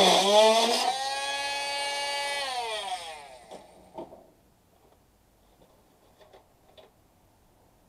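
Handheld corded power tool cutting into an air-conditioner's coil and pipes: the motor's whine dips in pitch as it bites, runs steady, then winds down to a stop about three seconds in. A few light knocks follow as the tool is handled and set down.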